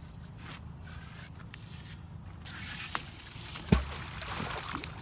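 A magnet-fishing magnet thrown on its rope and landing in river water with one sharp splash about three-quarters of the way through, followed by a second or so of sloshing water.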